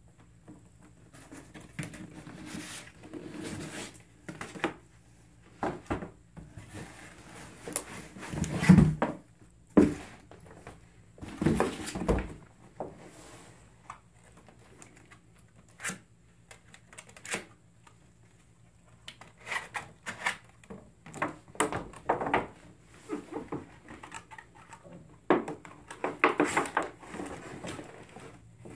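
Cardboard packaging being handled: irregular rustling, scraping and clicking as a large tool set box is pulled from its shipping carton. There are two heavy thumps about nine and ten seconds in, and plastic wrap crinkles near the end.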